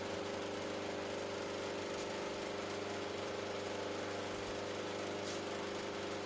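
Electric power tool motor running steadily at a constant speed, a continuous hum with no changes in load.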